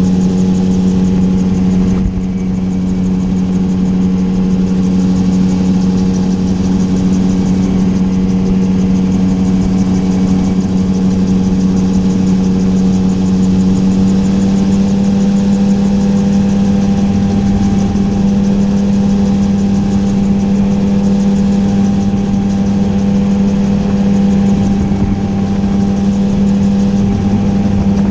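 Gyroplane's engine and propeller running steadily in flight, heard from inside the cockpit as a loud, even hum. The tone shifts slightly about two seconds in and again near the middle.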